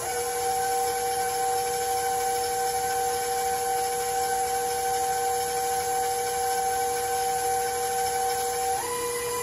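Electric stand mixer motor running, beating cream-cheese cheesecake batter with a steady whine. The whine drops to a lower pitch right at the start and steps back up near the end.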